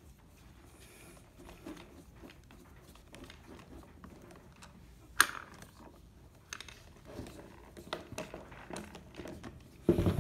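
Light handling noises of a small metal cross-slide table being set in place on a drill press, with scattered soft knocks and one sharp click about five seconds in.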